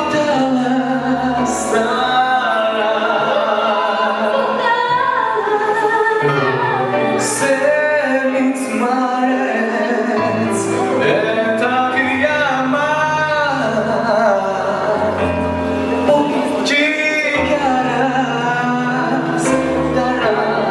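Music: a song with a singing voice carrying a wavering melody over a pulsing bass line, with a few short bright hissing accents.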